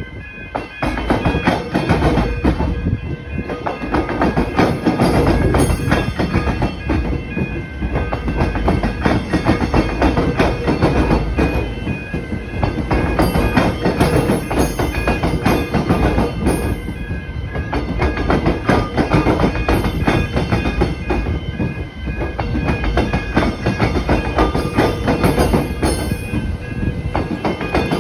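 Melbourne Metro X'Trapolis electric trains rumbling across a level crossing, their wheels clattering over the rail-tram square. Steady electronic level-crossing warning bells ring over the train noise.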